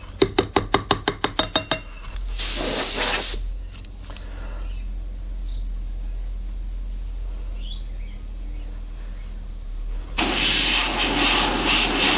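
A quick run of about a dozen sharp taps, then two blasts of compressed air from a blow gun, a short one and a longer one near the end. The air blows loose sand out of the pouring basin just cut in a greensand mould.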